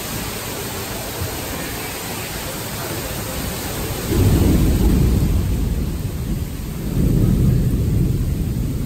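Heavy tropical downpour pouring steadily, with two louder, deep rumbling surges, about four and seven seconds in.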